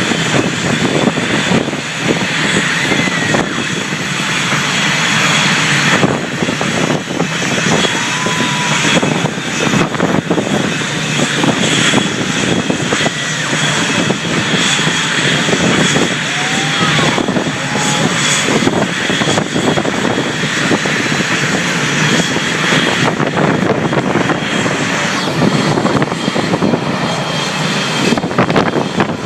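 Loud, steady aircraft engine noise at an airshow.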